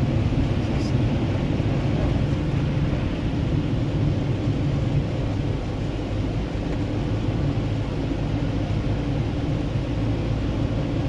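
Car engine and road noise heard from inside the cabin, a steady low drone with no change in pitch.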